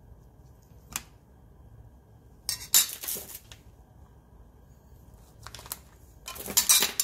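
A metal spoon and kitchen bowls clinking and scraping against a stainless steel bowl: one sharp click about a second in, then three short clattering bursts, the loudest near the end.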